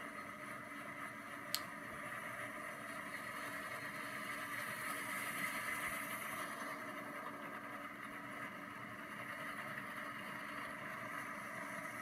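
1966 Sunbeam Tiger's V8 engine idling steadily, with one sharp click about a second and a half in.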